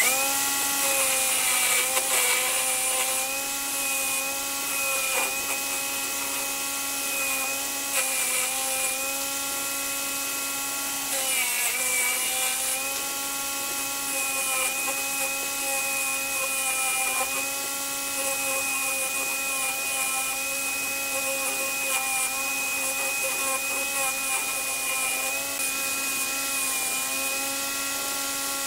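Corded electric drill clamped to a bench as a makeshift lathe, running steadily with a whine as it spins a round wooden blank. Its pitch sags briefly now and then under load as a hand chisel cuts the turning wood, most clearly about eleven seconds in.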